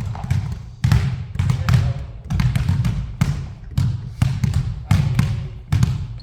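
A basketball being dribbled hard and fast in a ball-handling drill: sharp, uneven bounces, several a second.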